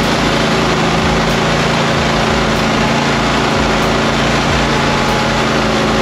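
Toro Multi Force's engine running steadily while its front power broom spins, sweeping hard-packed icy snow off the concrete, with a steady hiss over the engine's hum.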